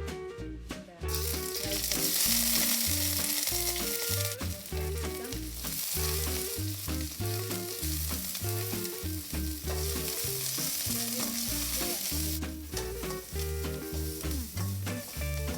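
Food sizzling in hot oil in a frying pan, starting suddenly about a second in and easing off near the end. Background music with a steady bass line plays throughout.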